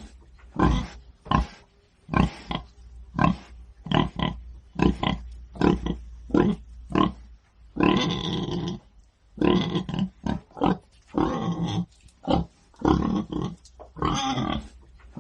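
Pig grunting repeatedly: short calls at irregular intervals, roughly two a second, with a few longer, drawn-out ones in the middle and near the end.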